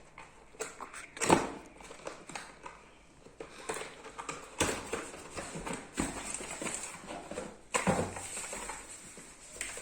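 A mechanical keyboard's box being opened and handled: rustling packaging with several sharp knocks and taps, the loudest about a second in.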